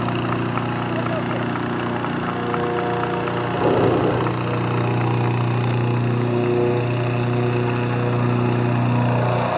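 A small petrol engine, most likely a hot air balloon's inflator fan, running at a steady pitch. About four seconds in, the balloon's propane burner gives a short blast that is louder than the engine.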